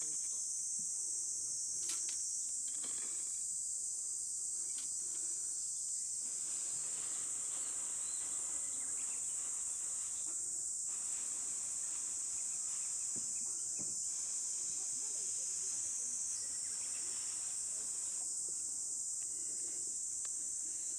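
Steady, high-pitched chorus of insects such as crickets or cicadas, with faint scattered rustles and light knocks beneath it.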